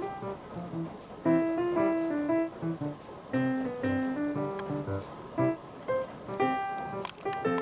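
Background music: a piano tune played in short, separate notes.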